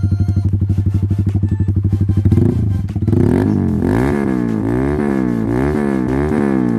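Honda CBR125R's single-cylinder four-stroke engine through a full SC Project exhaust, idling with an even thumping pulse, then revved up and down repeatedly from about three seconds in.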